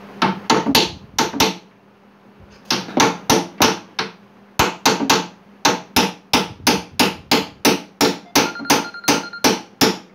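Hand hammer striking an old cabinet at its door lock in repeated sharp blows: a quick run of about five, a short pause, then steady strikes about two or three a second. A short metallic ring follows a few of the later blows.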